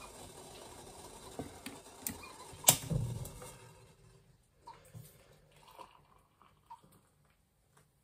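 Steady hiss with a few light clicks, then a loud metal clank about two and a half seconds in as the stovetop kettle is lifted off the electric hob. The hiss fades out about a second later, leaving only a few faint knocks of the kettle and mug.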